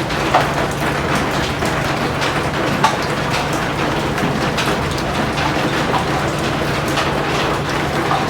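Steady heavy rain: an even wash of noise dotted with individual drop hits, with two sharper hits about half a second in and near three seconds in.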